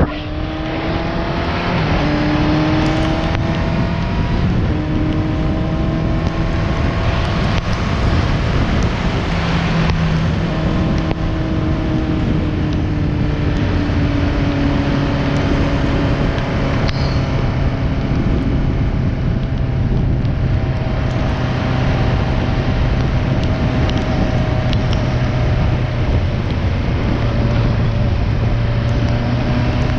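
Motorcycle engine running while riding, its pitch slowly rising and falling with speed, under steady wind and road noise.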